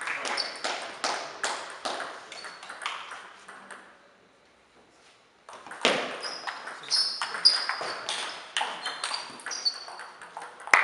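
Table tennis rally: the ball clicks sharply off paddles and the table in quick succession, with short high squeaks of shoes on the hall floor. The clicking stops for about a second and a half near the middle, then another rally starts.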